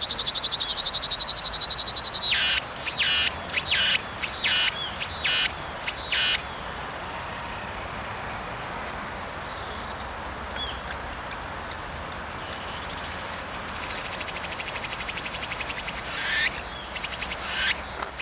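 Cicadas singing in a loud, continuous high buzz. A series of repeated swooping phrases comes through a few seconds in and again near the end. The buzz drops away about ten seconds in and picks up again a couple of seconds later.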